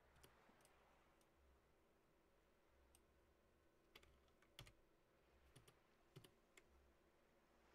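Near silence: quiet room tone with about ten faint, scattered clicks of a computer mouse and keyboard in use.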